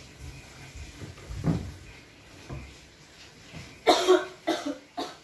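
A person coughing, a quick run of about five hard coughs near the end. It is a staged coughing fit for a fake coughing-up-blood prank.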